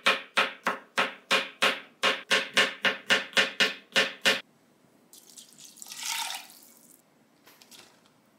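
Chef's knife slicing shiitake mushrooms on a cutting board, even knocks about three a second that stop a little over four seconds in. Then a short rushing hiss lasting about two seconds.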